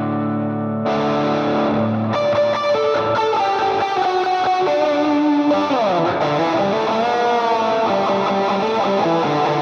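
Electric guitar played through a Line 6 HX Stomp preset tone-matched to a Vox AC15C1 amp, with a boosted, driven tone. It opens with ringing chords, then the preset changes to its lead setting for a single-note melody with a slide down in pitch just past the middle.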